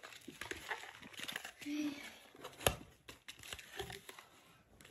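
Cardboard gift box being opened by hand: flaps and card packaging rustling and scraping, with one sharp click a little over halfway through.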